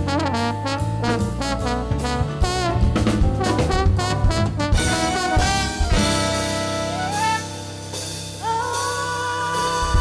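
Live band playing an instrumental passage led by horns, with a saxophone or brass line over a drum kit. Busy hits and runs give way about halfway through to long held notes, one sliding upward and then a higher one held near the end.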